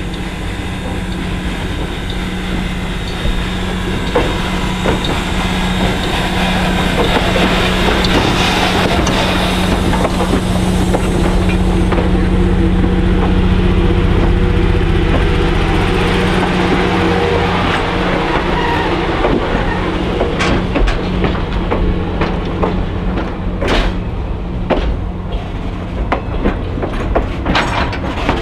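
Small 0-4-0 tank steam locomotive hauling passenger coaches past at low speed, followed by the coaches rolling by close up. The sound swells to its loudest about halfway through, over a steady low hum. In the second half, sharp clicks from the wheels crossing rail joints come more and more often.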